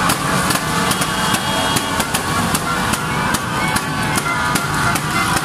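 Dense street-celebration din: a crowd and traffic, with music and held horn-like tones, broken by frequent sharp cracks.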